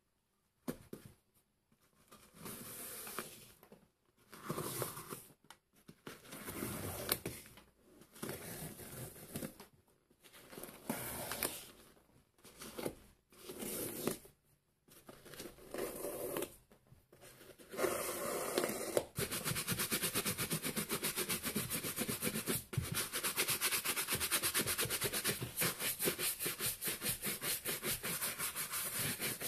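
A bootlace is pulled out through the eyelets of a suede work boot, scraping in separate pulls about a second long. From about two-thirds of the way through, a hand brush is worked fast and evenly back and forth over the boot's dry suede and mesh: the dry, mechanical cleaning of the boot.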